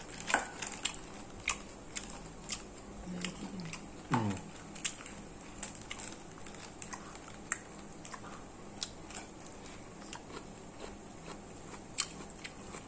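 Close chewing and biting of food, with scattered sharp crunches and clicks. A brief vocal sound falling in pitch comes about four seconds in.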